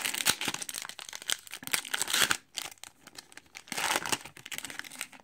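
Foil wrapper of a Topps baseball card pack being torn open and crinkled by hand, in two crackling bursts with a short pause about halfway.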